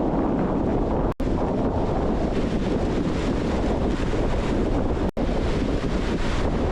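Strong wind buffeting the microphone over the wash of surf on the beach, steady throughout, cutting out for an instant twice.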